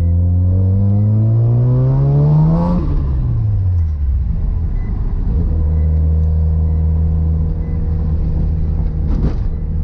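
Mazda RX-7 FC's turbocharged 13B rotary engine heard from inside the cabin, rising in pitch as the car accelerates for about three seconds, then dropping off and settling into a steady drone while cruising.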